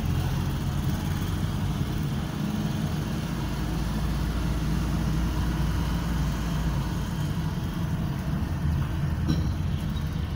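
Car engine running and tyres on the road, heard from inside the cabin while driving: a steady low hum.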